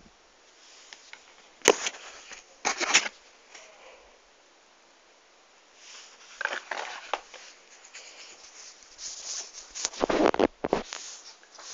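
Handling noise from a mask and a phone being moved about over fabric: a sharp knock about one and a half seconds in, then short rustling and rubbing sounds, loudest about ten seconds in.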